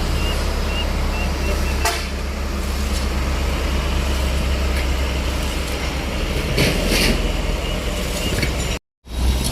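A large vehicle's engine running steadily, with a sharp click about two seconds in and a brief hiss near seven seconds. The sound cuts out for a moment near the end.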